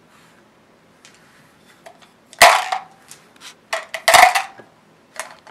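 Zombie Dice dice rattling in the game's cardboard cup as it is shaken: a few faint clicks, then several loud clattering bursts, each with a short ring.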